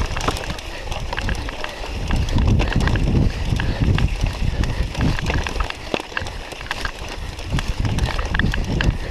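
Cyclocross bike clattering over rough grassy ground, with frequent irregular clicks and knocks from the frame and chain. Wind buffets the microphone in a low rumble that swells and dips throughout.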